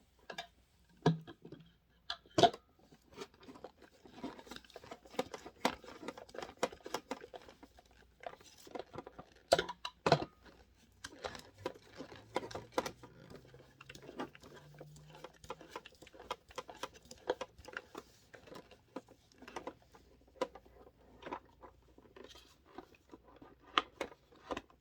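Hands working the plastic parts of a SodaStream Fizzi soda maker and its bottle: a long run of small irregular plastic clicks, taps and rustles, with a few louder knocks near the start and about ten seconds in.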